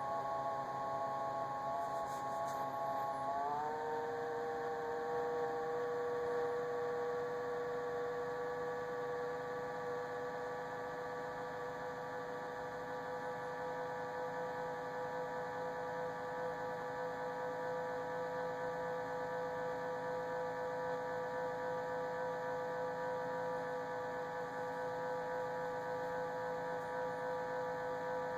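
Samsung refrigerator making a steady whining hum of several tones. About three seconds in, the pitch rises slightly, then holds.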